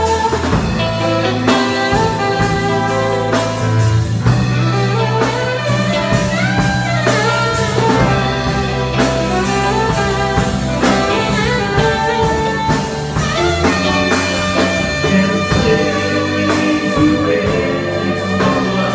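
Instrumental break of a gospel song: a band with guitar and bass playing under a melodic lead line, with no singing.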